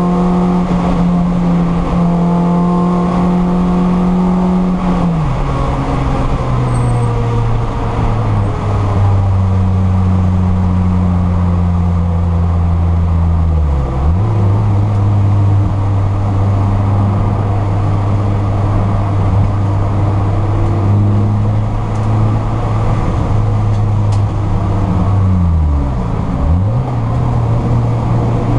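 Mini Cooper race car's four-cylinder engine heard from inside the cabin at racing speed, running hard under road and wind noise. Its note drops a few times and picks up again, about five seconds in, near the middle and near the end.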